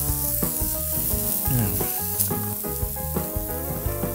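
Raw pork sausage patties and sausage links sizzling on a hot griddle, a steady frying hiss. Background music with a bass line plays under it.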